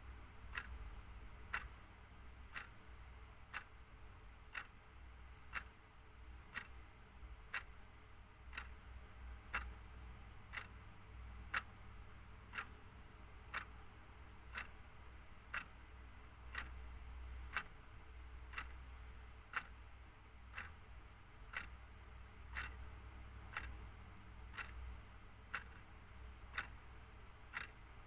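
Clock ticking steadily, about two ticks a second, strong and weak ticks alternating, over a faint low hum.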